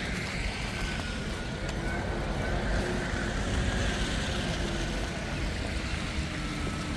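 Steady city street noise with a vehicle's motor whine slowly falling in pitch.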